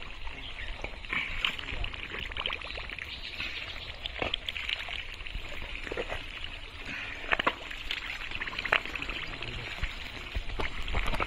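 Wet pond mud squelching and sloshing as hands dig through it and a body wades in it, with irregular short splats and drips of water.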